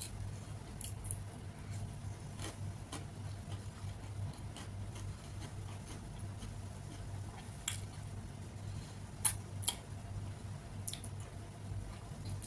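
Close-miked sounds of rajma chawal being eaten by hand: scattered soft wet mouth clicks and smacks of chewing, with a couple of sharper smacks a little past nine seconds in, over a steady low hum.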